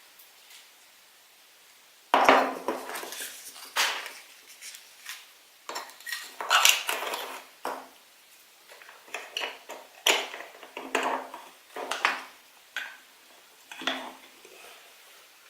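Small plastic toys and packaging being handled: irregular clicks, clatters and rustles. They start about two seconds in and die down near the end.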